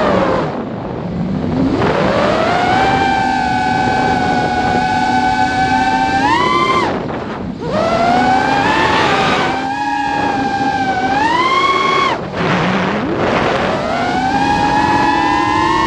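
Electric motors of an FPV drone whining, with several close tones. The pitch drops sharply as the throttle is cut, then climbs back and holds; this happens three times as the craft rolls and dives.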